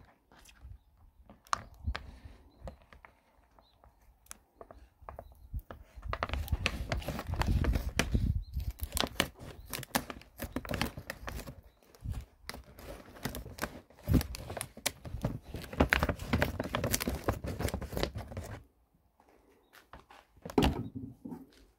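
Scissors cutting into a thick plastic bag, and the plastic crinkling and rustling as it is pulled and handled open. The crinkling is densest from about six seconds in until shortly before the end, with only scattered clicks and rustles before and after.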